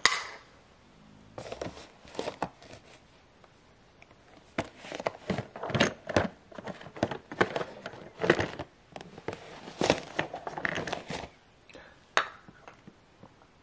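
Plastic film across a tissue box's opening crinkling as a toddler's hand digs toys out through it, with irregular light knocks of toys against the cardboard box.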